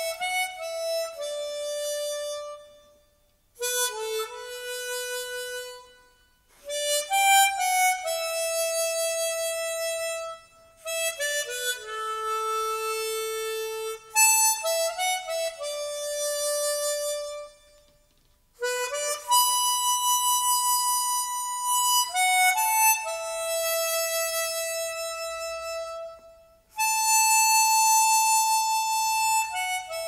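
Saxophone playing a slow ballad melody in long held notes that slide between pitches, in phrases broken by short pauses.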